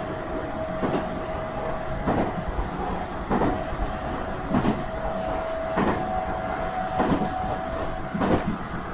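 Nankai 2300 series electric train running, heard from inside the car: wheels clack over rail joints about once every 1.2 seconds, over steady running noise with a high, even whine.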